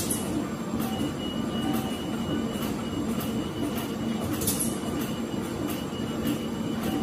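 Steady hum and noise of test-floor machinery, with a few faint short ticks and a thin high tone that comes and goes.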